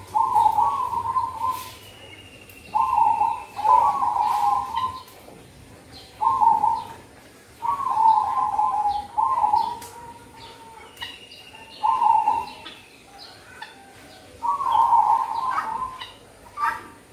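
Zebra dove (perkutut) cooing: repeated warbling coo phrases, each lasting one to two seconds, separated by short pauses.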